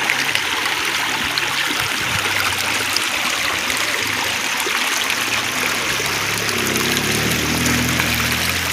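Shallow stream running over rocks and pebbles, a steady babbling rush of water. A low steady hum comes in faintly about two seconds in and grows stronger near the end.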